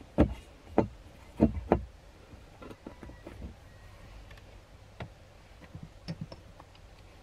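Hard plastic clicks and taps as a plastic mounting grid is set and pressed into the molded dashboard tray. Four sharp clicks come in the first two seconds, then fainter scattered taps.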